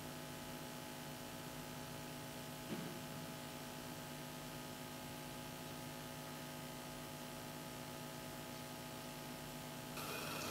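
Steady electrical hum with a faint hiss, with a soft click nearly three seconds in and a slightly louder, noisier sound starting just before the end.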